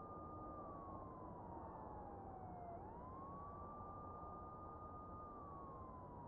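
Faint distant police siren wailing slowly: a held high note that slides down over about two seconds, swoops back up a little under halfway through, holds, and starts sliding down again near the end.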